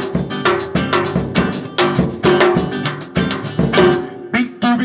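Instrumental break in a Brazilian song: a drum kit beating a steady rhythm under guitar notes, with no singing.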